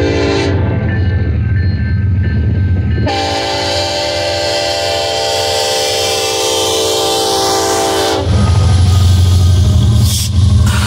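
Union Pacific diesel freight locomotive's multi-note air horn sounding for the grade crossing: a brief blast at the start, then one long blast of about five seconds. As the horn stops, the lead locomotives pass close with a loud low diesel engine rumble.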